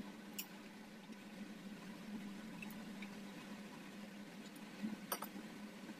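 Quiet kitchen with a steady low hum and a few light clicks of a metal spoon against a small metal pot, the sharpest about five seconds in.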